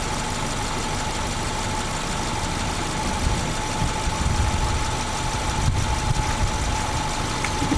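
Car engine idling steadily, with a constant high-pitched tone running above the low rumble.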